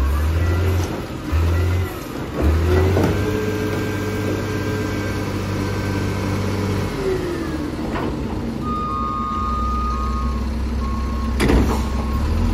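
Diesel front-loader garbage truck working its hydraulic forks: the engine surges briefly twice, then revs up and holds for several seconds before dropping back as the dumpster is emptied and lowered. A steady reversing beeper pulses in the second half, and a loud clank comes near the end as the dumpster is set down.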